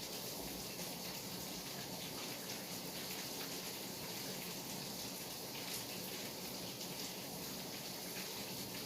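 Steady night rain falling: an even hiss with faint scattered drop ticks.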